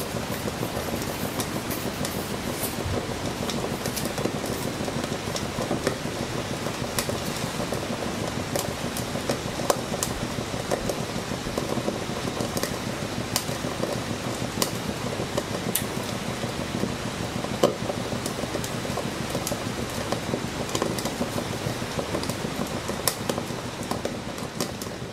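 Wilesco D24 toy steam engine running: a steady hiss with scattered irregular clicks and ticks.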